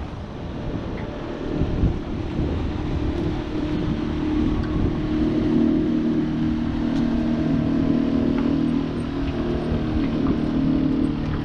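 A motor engine droning steadily, growing louder about three seconds in and holding, with wind buffeting the microphone.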